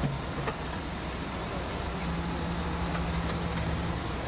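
Heavy vehicle engine running steadily at an even pitch, with a light click or two near the start.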